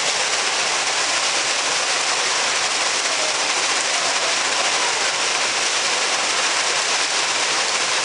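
Water from a thin garden waterfall falling into a shallow stone pool: a steady, unbroken splashing hiss.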